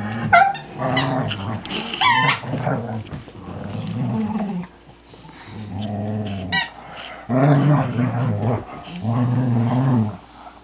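Dog growling in play over a toy, about seven low rumbles of roughly a second each, with a few short high yips in between.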